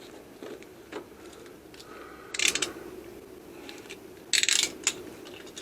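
Metal saw chain clinking and rattling as it is handled and fitted onto the pole saw's bar. There are a few small clicks and two short jingling bursts, about two seconds apart.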